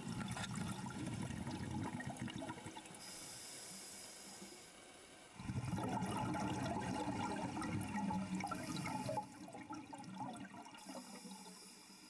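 Scuba diver breathing underwater: a hiss from the regulator on the inhale, then a loud gush of exhaled bubbles about five seconds in that lasts some four seconds, and another inhale hiss near the end.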